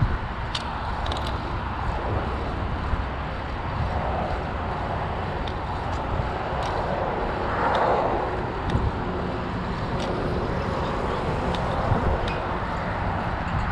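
Steady wind and tyre rumble picked up by a chest-mounted GoPro on a moving bicycle, with scattered faint clicks and a brief swell of noise about eight seconds in.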